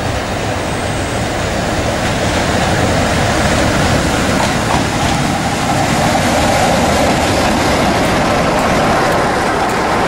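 Class 47 diesel locomotive 47765, with its Sulzer twelve-cylinder engine, running alongside the platform hauling a train of coaches, followed by the coaches' wheels rolling over the rails. The sound grows louder about two seconds in as the locomotive comes close, then holds steady as it passes.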